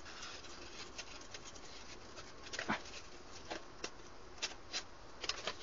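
Razor blade trimming the excess paper covering and balsa off the leading edge of a model plane's stabilizer: a few faint, irregular ticks and crackles, the loudest about halfway through.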